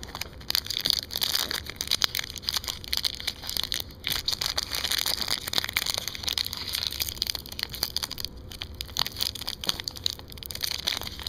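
Wrapper of an Upper Deck hockey card pack crinkling and crackling without a break as it is handled and opened by hand.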